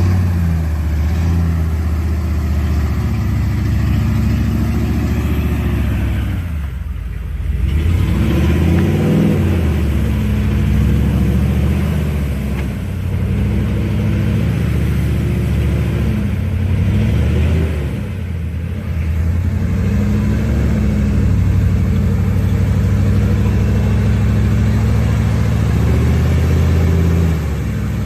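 Off-road vehicle engine revving hard and easing off again and again, its pitch climbing and falling in waves, as the wheels spin and dig into deep mud without getting traction.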